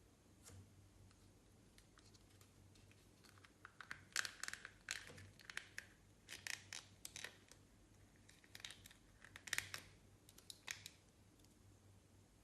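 Quiet room broken by four short bursts of crisp clicks and crackles from hands working with slime-making materials.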